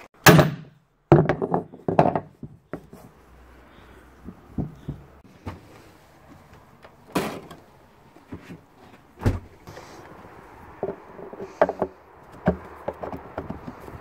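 Scattered knocks, clunks and clicks of hands handling a plastic washing-machine outer tub and a new drum bearing. The loudest is a sharp knock just after the start, with more clusters of knocks about a second in and near the end.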